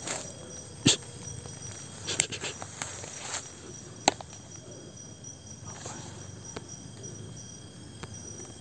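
Night insects, crickets among them, chirping steadily in a forest as a continuous high pulsing trill. A few sharp clicks and short rustles stand out, the loudest about a second in and another about four seconds in.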